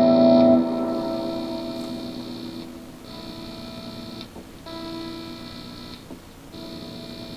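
Electric guitar chord from a Fender Custom Shop Stratocaster through a Positive Grid Spark 40 amp on a high-gain AC30 boost setting, ringing out and fading over the first couple of seconds. The amp's hum and a high buzz remain, the buzz cutting in and out every second or so: noise picked up through the guitar's pickups.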